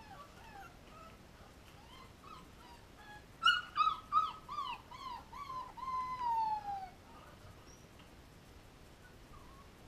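Young puppies whimpering and crying. Faint whimpers come first, then about three and a half seconds in a run of short, high, falling cries ends in one longer whine that slides down in pitch.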